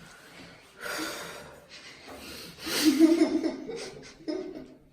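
Short breathy vocal noises from a person, three separate bursts, the loudest about three seconds in.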